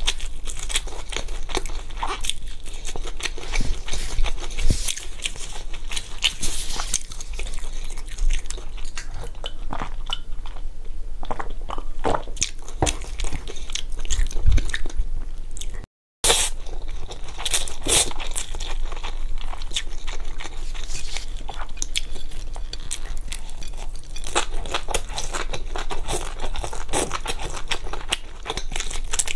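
Close-miked eating: crunching, biting and chewing of fried skewers and spicy instant noodles, with dense wet mouth clicks. The sound drops out to silence for a moment about halfway through.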